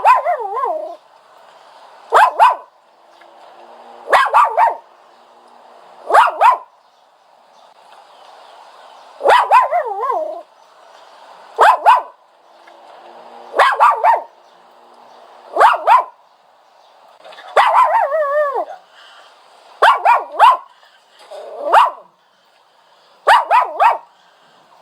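A dog whining and yelping in short high cries, repeated about every two seconds. Several cries fall in pitch, and one near the end wavers for longer.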